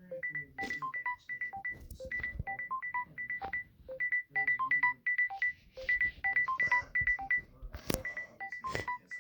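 Samsung Galaxy S22 ringtone playing: a quick, repeating melody of short, high electronic notes. There is a sharp click about eight seconds in.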